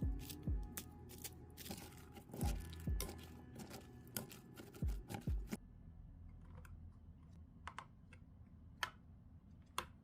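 Kitchen handling sounds: scattered sharp clicks and several dull knocks, like dishes and utensils being set down and moved, busy for the first half and then only a few clicks.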